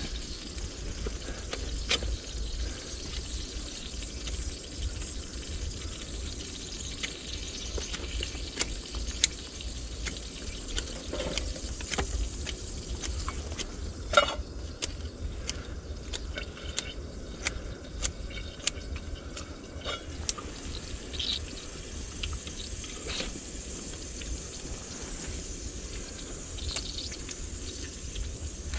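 Meat frying over a camp fire: a steady sizzling hiss with scattered sharp pops and crackles.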